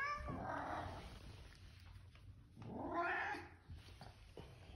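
Deaf white cats meowing: two long, drawn-out calls, one right at the start and a louder one about three seconds in.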